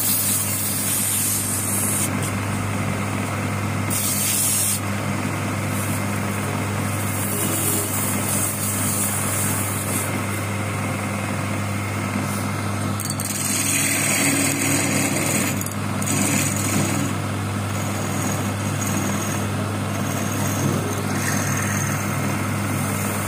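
Electric wood lathe running with a steady hum while its wooden workpiece spins. A scratchy hiss of sandpaper and tool against the turning wood comes and goes, strongest a little past the middle.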